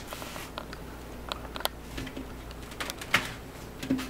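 Light knocks, clicks and scrapes as wooden hive parts and a sheet-metal screen are handled and set down on a table, several scattered sharp taps over a faint steady hum.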